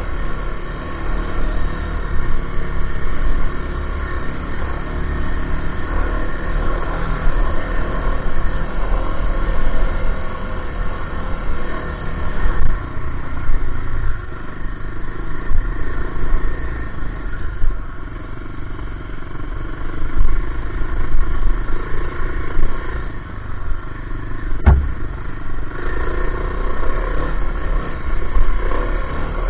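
A 500 cc dirt bike's engine running under way, its pitch and loudness rising and falling with the throttle, over heavy wind rumble on the microphone. A single sharp knock about 25 seconds in.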